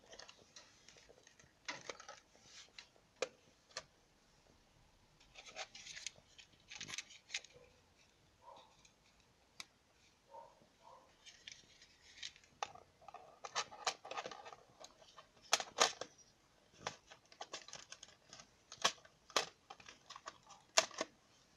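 Hands handling an Aiwa portable cassette player and a plastic cassette adapter: irregular plastic clicks, taps and short scraping rustles, coming thicker and sharper in the second half.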